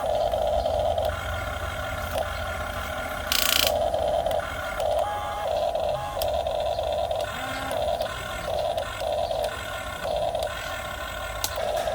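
Small electric drive motors of a radio-controlled model excavator whining in short start-and-stop stretches as its controls are worked. There is a brief hissing scrape about three and a half seconds in.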